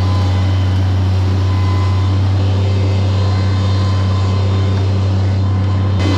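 A mini track loader's engine running steadily under throttle, an even, loud drone.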